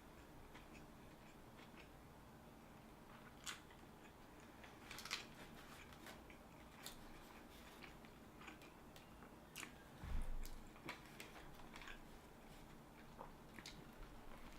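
Faint chewing and mouth clicks of someone eating a sub sandwich, scattered crackles through it, with a dull low thump about ten seconds in.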